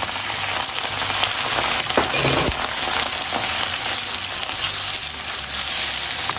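Soy sauce sizzling as it hits hot sesame oil in a pan of frying diced onion and garlic, a steady crackling hiss while a spoon stirs it through.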